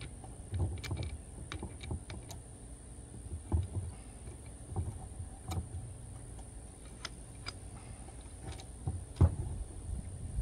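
Scattered clicks and knocks of wire rope and a metal crimping sleeve being handled and worked into the die of a hydraulic lug press, with a heavier knock about nine seconds in, over a steady low hum.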